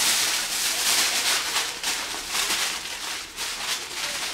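Aluminium foil crinkling and crackling as a sheet is scrunched and pressed by hand around a ball of foil, a dense run of crisp clicks, somewhat softer in the second half.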